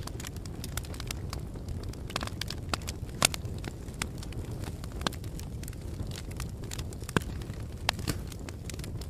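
Wood fire burning with a steady low rumble and frequent sharp crackles and pops of the wood. The loudest pop comes about three seconds in.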